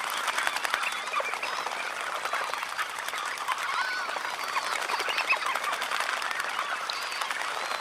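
A large flock of red knots bathing close up: constant splashing and wing-fluttering in shallow water under a dense chatter of short overlapping calls, with the odd higher whistled call of other waders behind.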